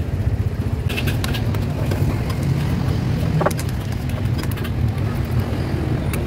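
Steady low rumble of road traffic, with a few light taps and clicks as dough is pressed onto a stone counter.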